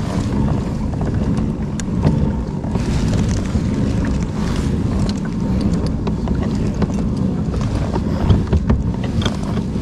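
Wind buffeting the microphone over water sloshing around a kayak, with a few light knocks.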